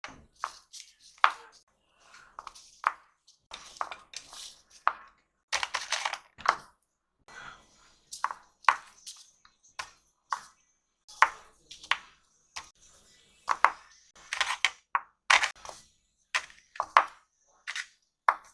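Oil pastel sticks and their box being handled and sorted: a run of irregular light clicks and taps, several a second, as the sticks are picked up and set down.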